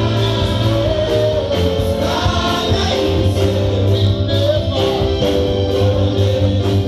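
Choir singing gospel music with instrumental accompaniment and a steady beat.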